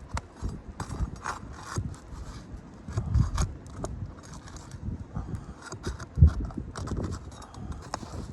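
Asphalt roof shingles being worked loose by hand: irregular knocks, scrapes and crackles, with a sharp thump a little after six seconds.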